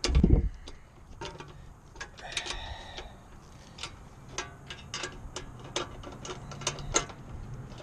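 A hand ratchet wrench clicking as it is swung back and forth, tightening nuts onto bolts; the clicks come faster, about three a second, towards the end. A dull thump at the start.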